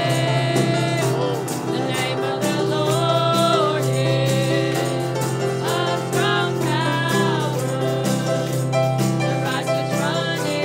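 Live gospel worship music: singing over piano and a drum kit keeping a steady beat.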